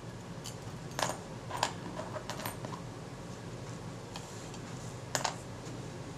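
Small loose metal parts of a Kodak Retina IIa camera (washers, a hooked part and a screw) clinking as they are picked out of a metal parts tin and set down on a work mat. A few separate sharp clicks over a faint steady hum.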